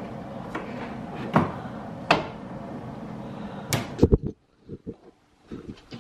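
Kitchen cupboard and refrigerator doors and drawer being opened and closed, with a few sharp knocks and two heavy thumps about four seconds in. A steady background noise cuts out suddenly just after the thumps, and small knocks follow.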